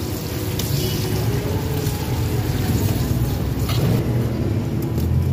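Hot oil sizzling steadily as sugar-coated spring rolls deep-fry in a wok, over a steady low rumble; the hiss thins after about four seconds.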